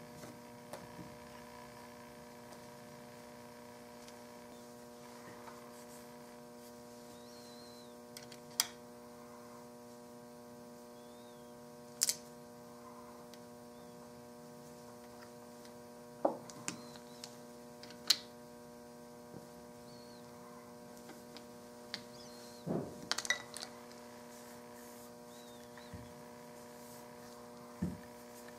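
Steady electrical hum with a ladder of overtones, broken by scattered sharp clicks and taps of metal rifle parts and hand tools handled on a workbench as the action is fitted into a wooden stock.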